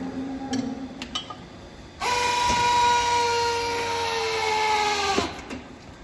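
Hydraulic pump of a cattle hoof-trimming chute running: a steady whine that starts abruptly about two seconds in, sinks slightly in pitch, and cuts off after about three seconds. A few sharp knocks come before it.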